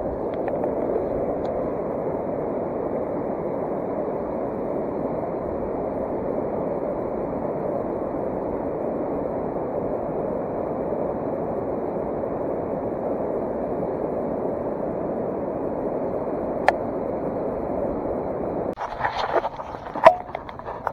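Steady rushing of a flowing mountain trout stream, with one sharp click near the end. The water sound then cuts off abruptly, giving way to a few sharp clicks and knocks.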